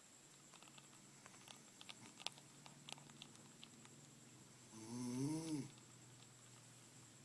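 A woman snoring in her sleep: a quiet pause with a few faint clicks, then one snore of about a second, its pitch rising and falling, about two-thirds of the way in.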